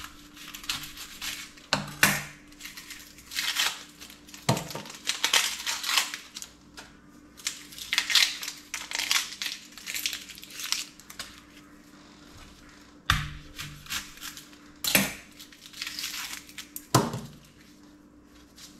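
Dry, papery onion skin crackling and tearing as it is peeled off a white onion by hand, in repeated rustles, with about six sharp knocks of the knife and onion against a plate.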